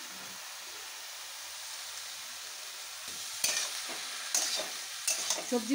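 Chopped vegetables with freshly added salted eggplant sizzling in oil in a steel kadai: a steady hiss. From about three and a half seconds in, a spatula scrapes and knocks against the pan as the vegetables are stirred.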